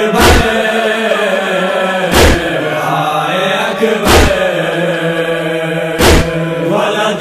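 Noha lament: voices holding a long, wavering chanted note, with a deep thud about every two seconds in the steady beat of matam.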